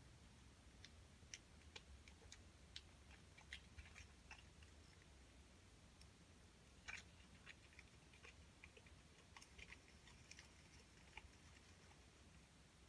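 Near silence: quiet room tone with faint, irregular small clicks and ticks scattered through it.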